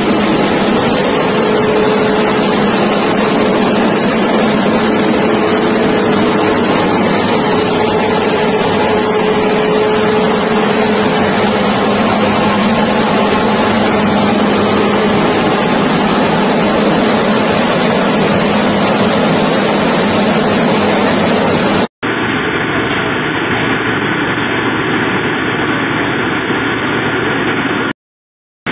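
Combined rice milling unit running: a loud, steady mechanical din of motors, fans and grain moving through the milling machinery, with a faint steady hum. About two-thirds of the way through the sound cuts abruptly to a duller recording of the same running machinery, and it drops out briefly near the end.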